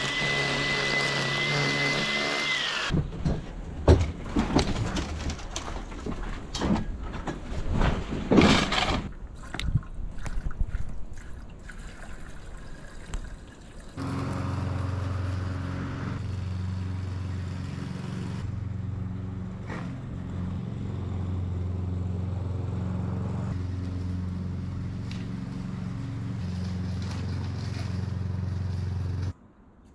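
A string trimmer runs at a steady high whine for the first three seconds, then cuts off. Irregular knocks and clatter follow. From about halfway through, a petrol rotary lawn mower runs at a steady drone while mowing, and it stops abruptly just before the end.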